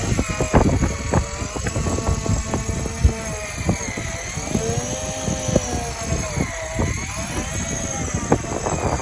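Shimano BeastMaster 9000 electric fishing reel motor winding under heavy load, its whine rising and falling in pitch as the fish pulls. Underneath it runs a gusty low rumble with scattered knocks.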